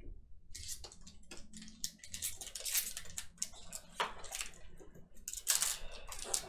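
Trading cards and a card-pack wrapper being handled: a dense run of crinkling, crackling rustles starting about half a second in.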